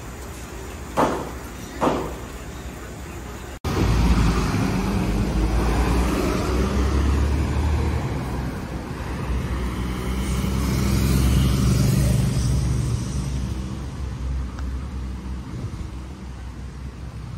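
Bus engine running as the bus pulls away up the road; it is loudest a few seconds in and fades toward the end. Before it come two sharp knocks about a second apart.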